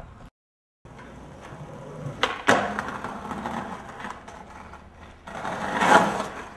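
Skateboard wheels rolling over pavement, with two sharp clacks of the board about two seconds in, then a louder rush of rolling near the end.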